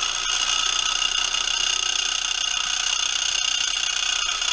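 A power cutting tool running steadily and loud, cutting away the pieces that stop a fan motor from seating deep enough in its mount.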